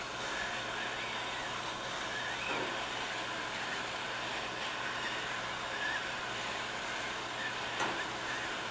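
Vortex hot-air torch blowing steadily, a constant hiss of hot air from its nozzle as it heats a stuck brass tuba slide to draw penetrating oil into the joint.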